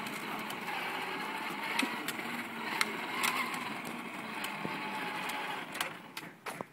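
Hard plastic wheels of a Power Wheels Jeep rolling and crunching over rough asphalt as the toy is pushed by hand, with scattered small clicks and knocks. The rolling dies away near the end, leaving a few sharp knocks.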